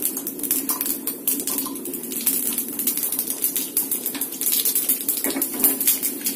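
Mustard and fenugreek seeds spluttering in hot oil in a small iron kadai: a rapid, irregular crackle of pops over a steady low hum.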